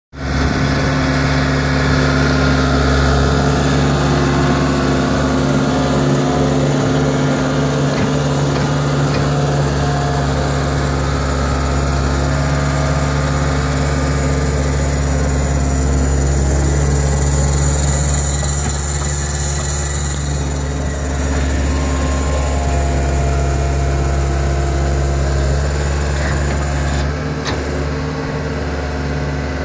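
Cat skid steer's diesel engine running steadily under load while it powers a hydraulic auger drive, easing off slightly about two-thirds of the way through.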